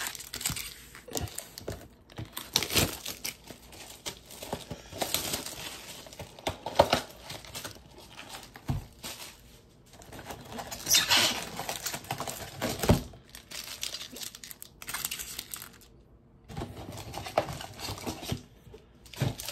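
Plastic wrappers of trading-card packs crinkling and rustling as the packs are handled and stacked on a desk. A few sharp knocks come as packs are set down.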